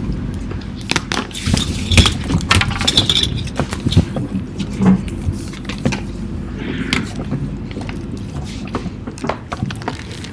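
Scattered small clicks, knocks and clinks of objects being handled on desks, over a low steady hum, picked up through many open microphones on a video call at once.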